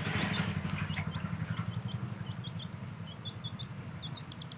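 Baby chicks peeping: many short, high chirps in quick succession, over a steady low mechanical hum.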